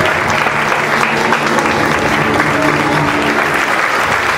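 Audience applauding steadily over the act's background music.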